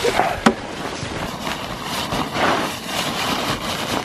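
Rustling of tent fabric and crunching snow as a snow-covered tent is taken down and packed, with a sharp knock about half a second in.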